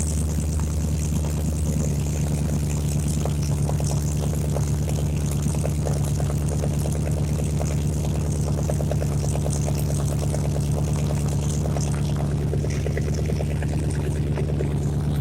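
Mercedes C63 AMG's V8 idling steadily through catless long-tube headers, an X-pipe and stock rear mufflers, with an even low exhaust burble.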